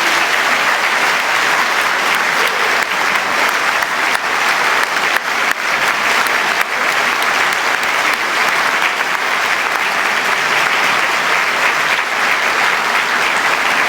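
Concert audience applauding steadily, a dense clatter of many hands clapping right after the orchestra's final chord.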